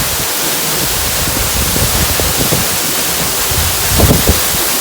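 Waterfall pouring close by, a loud, steady rushing hiss of falling water, with a few low thumps about four seconds in.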